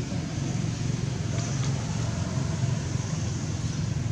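Steady low background rumble with a faint hiss above it, holding at an even level.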